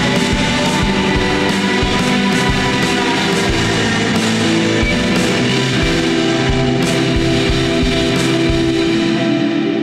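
Shoegaze noise-rock band playing: a dense wall of fuzz-distorted electric guitars over drums, with steady kick-drum thumps and cymbal crashes. Near the end the cymbals and the high end fade away.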